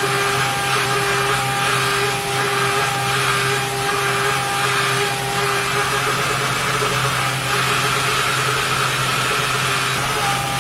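CNC machine running steadily: a motor hum with a high whine and hiss, and faint soft pulses about every three-quarters of a second in the first half.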